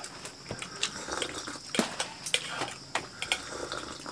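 Scattered light clinks and scrapes of spoons against plates and bowls as rice and side dishes are served.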